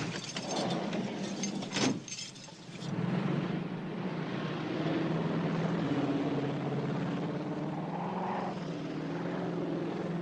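A few sharp knocks, then a steady drone of a propeller aircraft's engine.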